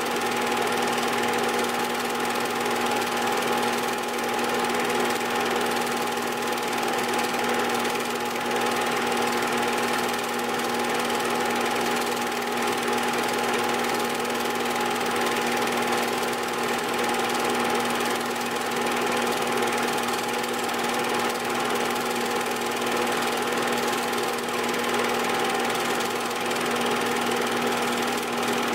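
8mm film projector running: a steady motor hum with the whirring clatter of the film mechanism, unchanging throughout.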